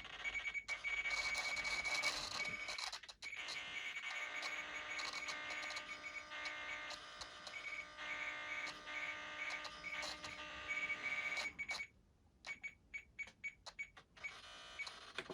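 Electronic beeping and buzzing from radio-control gear being programmed: a high tone that keeps breaking off and starting again. Near the end it turns into a quick run of short clicks.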